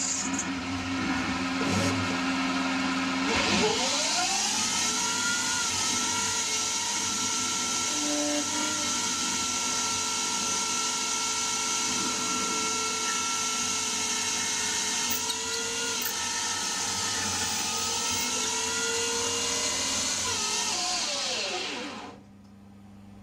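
CNC lathe running: its spindle whine rises as it spins up a few seconds in, holds steady for most of the time, then falls away as the spindle slows and stops near the end, leaving a low machine hum.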